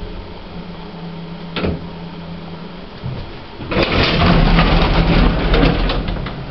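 Old modernised lift, probably originally a 1960s J&E Hall, running with a steady low hum and a click about one and a half seconds in. From a little before four seconds, a louder rattling rumble with a run of clicks lasts about two seconds.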